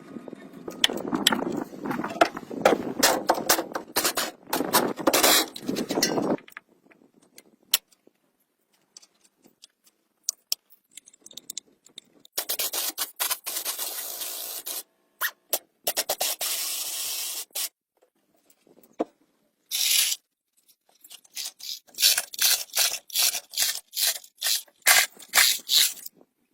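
Hand and power-tool restoration work on metal, edited together: rough scraping for the first six seconds, then two hissing stretches of about two seconds each, then a run of quick repeated scraping strokes near the end.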